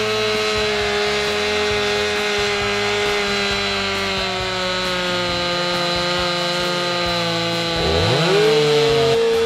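Stihl chainsaw running at full throttle under load as it bores a plunge cut into an oak trunk. Its pitch sags slowly as the bar works into the wood. A little after eight seconds in, the engine speed rises sharply and holds higher.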